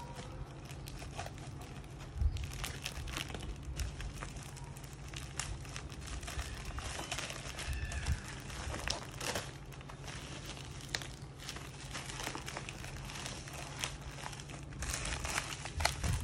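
A white courier mailer envelope crinkling and tearing as it is pulled open by hand, in many short irregular crackles over a steady low hum.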